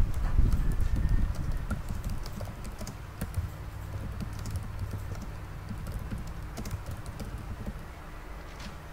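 Scattered light clicks and taps of fingers on a phone's touchscreen and body, over a low rumble of handling noise that is loudest in the first second or so.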